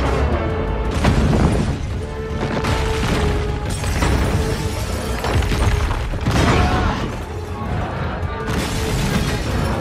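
Film score playing over sound effects of a giant-robot fight: repeated heavy booming impacts and crashing metal, with glass and debris shattering.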